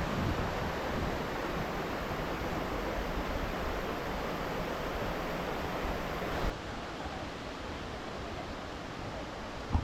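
Steady rushing of water from a waterfall and its rapids, an even roar with no distinct splashes. It drops slightly in level and changes tone about two-thirds of the way through, and a brief thump comes at the very end.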